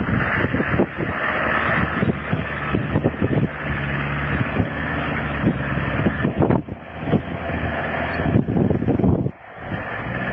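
Land Rover Defender's engine running under load as it crawls up a steep, rutted off-road slope, with knocks and buffeting over a steady rumble; it eases briefly about nine seconds in.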